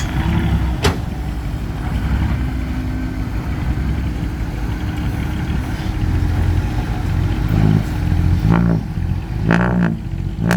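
Heavy diesel engine running steadily, with a single sharp click about a second in.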